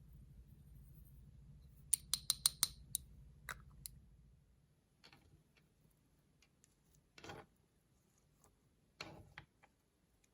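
Makeup containers and tools handled up close: a quick run of sharp clicks about two seconds in, a few single clicks, then two short scraping sounds later on.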